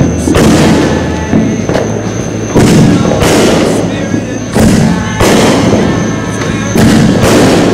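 Aerial firework shells bursting overhead: a string of about seven loud booms a second or so apart, each trailing off in a rumble and hiss.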